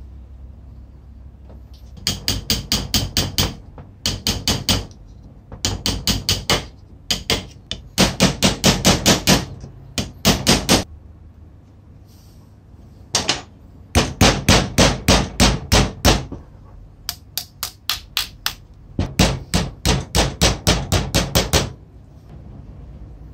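Light, rapid hammer taps on the laminated iron core pieces as they are driven into the field coil of an old electric chisel. The taps come about seven a second, in runs of one to two seconds with short pauses between runs.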